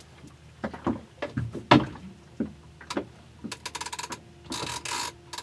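Fishing gear being handled on a small boat: several separate knocks and clatters, one sharper than the rest, then a quick run of rapid clicks and a short hiss near the end.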